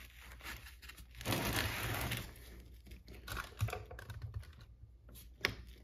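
Small plastic clicks and handling noise as a bearing and dog bone shaft are worked into the front hub of a Tamiya CC01 RC car, with a brief scraping rustle about a second in and a sharper click near the end.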